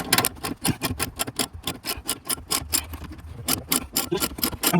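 Ratchet wrench with a 12 mm socket clicking rapidly as it spins out the freed bolt of the rear stabilizer bar bushing bracket.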